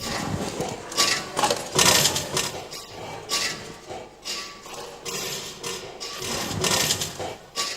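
Irregular clattering and knocking with scraping noise, in uneven bursts rather than a steady beat.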